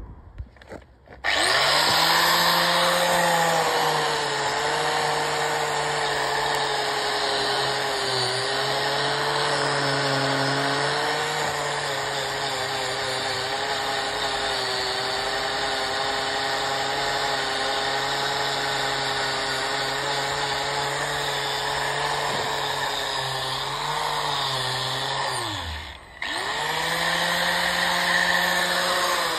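Angle grinder with a wire cup brush scrubbing a steel narrowboat hull, stripping old blacking and corrosion back towards bare metal. It starts suddenly about a second in and runs with a steady motor whine that wavers a little under load. Near the end it winds down briefly, then spins back up.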